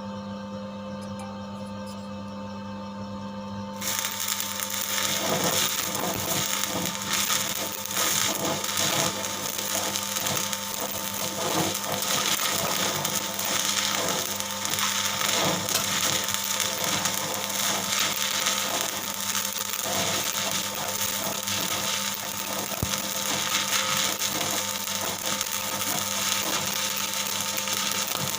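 Stick (arc) welding on galvanized iron pipe: after about four seconds of a steady low hum, the arc strikes and crackles and sizzles steadily, with many small pops, for the rest of the time.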